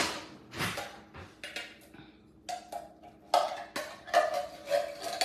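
Metal can of apple pie filling knocked and scraped with a spoon as it is emptied into a glass bowl: a few sharp taps, then a denser run of scraping and clatter from about two and a half seconds in.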